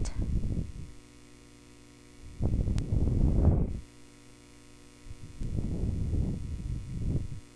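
Stylus writing on a tablet screen: three bursts of scratchy rubbing, each one to one and a half seconds long, with a single sharp tap about three seconds in.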